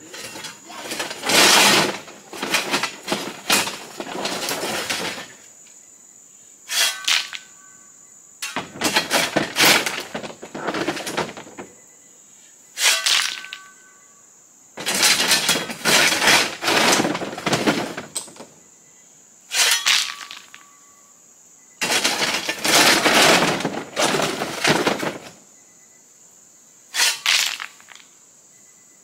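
A steel shovel scraping and scooping white rock out of a pickup bed, the stones clattering and crunching, in about seven separate bursts a few seconds apart. Crickets trill steadily and faintly throughout.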